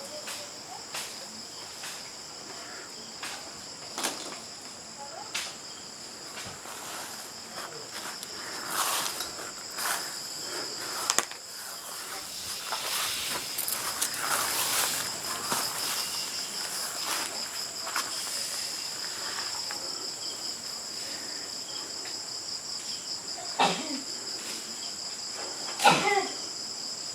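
Crickets chirring in a steady, high, continuous drone, with a few scattered clicks and two short voice-like calls near the end.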